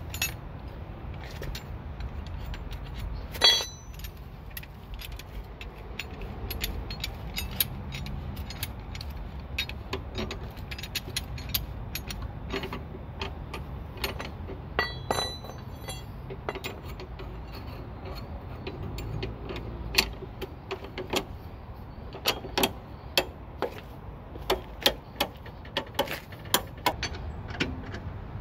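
Scissor jack being cranked up with a hooked steel crank rod: a long run of metallic clicks and clanks as the rod turns in the jack's screw eye. One louder, ringing clank comes about three seconds in, and the clicks grow louder and more frequent in the last third.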